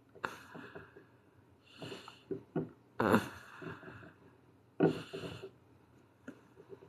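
A person's breaths close to the microphone: four short, breathy puffs about one to two seconds apart, the third the loudest, with a few faint ticks between them.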